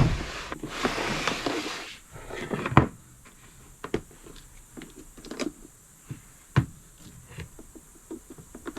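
Hands handling equipment: a rustling stretch in the first two seconds, then scattered clicks and knocks, while the air compressor is still silent without power.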